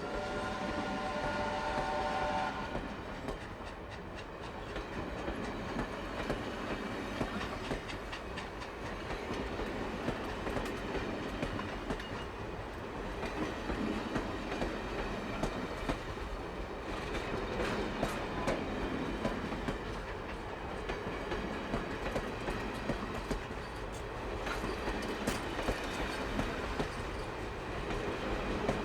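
A train running along the track: a steady rumble with repeated clicks of the wheels over the rails. In the first couple of seconds a train horn sounds a chord of several notes and stops.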